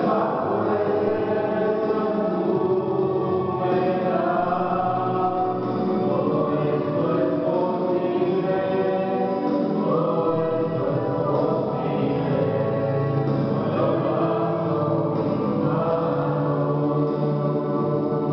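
A small group of three voices, two men and a woman, singing a Christian worship song together into microphones, continuous and steady.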